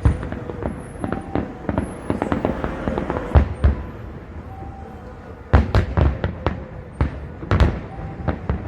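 Fireworks salute going off: a run of sharp booming bursts with crackling between them, thickest about five and a half to six seconds in.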